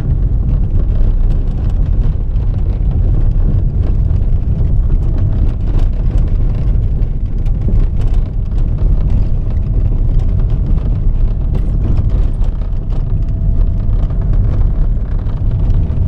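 Car driving on a gravel dirt road, heard from inside the cabin: a steady low rumble from the tyres and engine, with many small clicks and knocks from the rough surface. A faint steady hum joins about halfway through.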